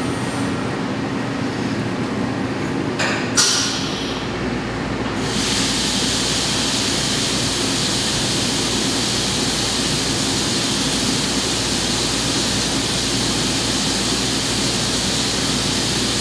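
CNC vertical mill running with its doors shut, a steady machine hum with a short clunk about three seconds in. About five seconds in the flood coolant comes on and hisses and splashes steadily against the enclosure as a small drill bores pin holes in stainless steel.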